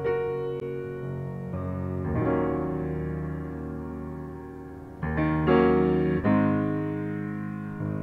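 Solo piano music: slow sustained chords, a new chord struck every second or two, growing louder about five seconds in.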